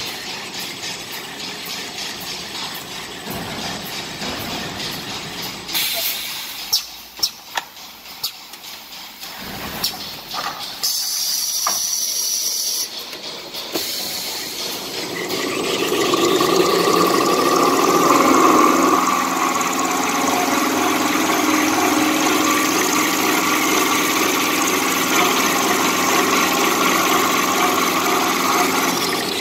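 Kitchen towel paper rewinding and glue-lamination machine line running, with a few sharp clicks midway and a high hiss for a few seconds. From about halfway on it runs louder and steady, with a hum.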